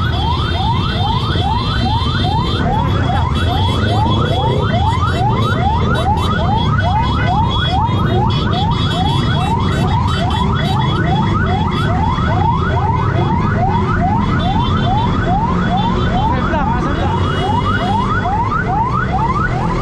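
Electronic siren on yelp, a quick rising sweep repeating about two and a half times a second, over the steady running of motor scooter engines.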